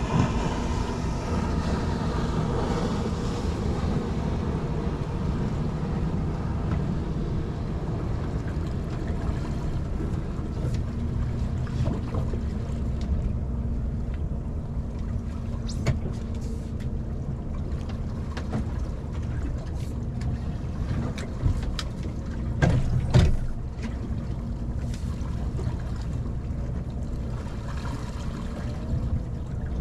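Wind on the microphone aboard a small boat: a steady low rumble, with scattered light clicks and knocks and one louder clatter about three quarters of the way through.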